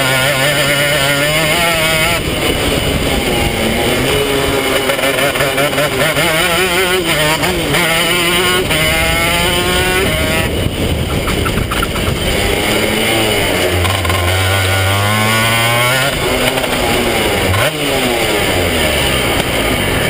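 250cc two-stroke kart engine heard onboard, revving up and falling back again and again as the kart is driven through gear changes and corners. About three-quarters through it drops to a lower, steadier note as the kart slows.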